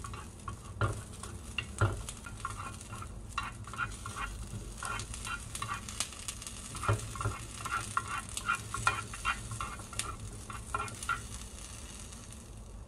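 Ginkgo nuts frying in a small nonstick pan, stirred with wooden chopsticks, so the nuts and sticks click and tap irregularly against the pan over a faint frying sizzle. The clicking stops shortly before the end.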